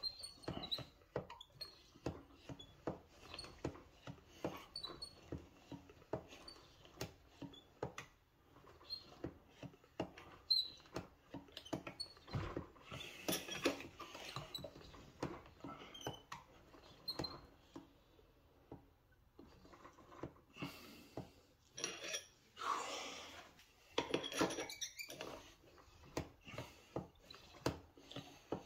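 A master cylinder being bench bled by hand: the piston is pushed in and let back out again and again, giving a run of small clicks and short high squeaks, with a couple of longer noisy stretches as fluid and air are forced through the clear bleeder tubes back into the reservoir.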